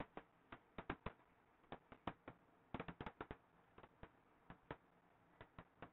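Faint, irregular clicks and taps of a stylus on a pen tablet during handwriting, a few a second, with near silence between them.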